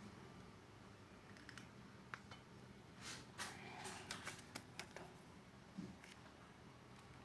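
Near silence with low room hum and a few faint, short clicks and taps between about two and six seconds in, the sound of small parts being handled.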